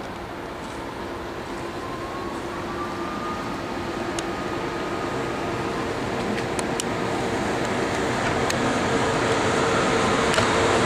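An ICE high-speed train's power car drawing in, its running noise growing steadily louder as it approaches. A thin steady whine comes in about two seconds in, and there are a few faint clicks.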